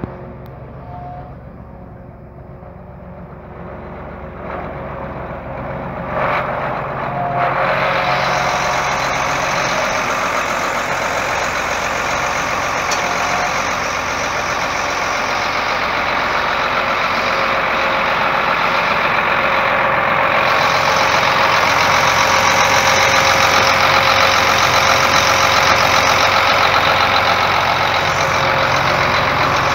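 John Deere 8235R tractor's diesel engine running steadily, with a steady hum. It grows much louder about seven seconds in and stays loud.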